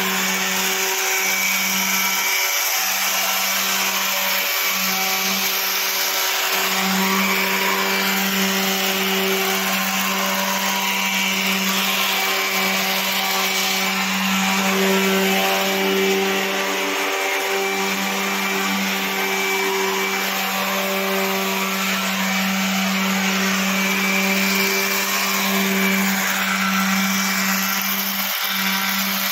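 Electric palm sander running steadily, its pad rubbing over the painted face of an iron door to sand it down for repainting.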